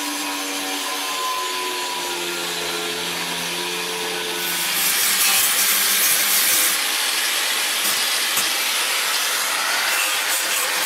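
Angle grinder with a cutting disc cutting into metal plate: a steady motor whine under the hiss of the disc on the metal, the hiss growing louder for a couple of seconds about halfway through.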